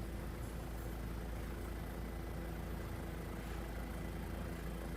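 Steady low hum with a few faint steady tones, with no events or changes.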